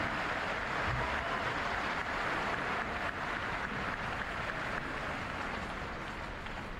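Arena crowd cheering and clapping after a point in a table tennis match, a steady wash of noise that slowly fades.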